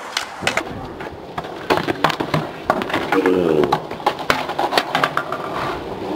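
Stunt scooter and skateboard wheels clattering on concrete, with many sharp knocks of metal and decks hitting the ground as the scooter rider crashes. A brief voice about three seconds in.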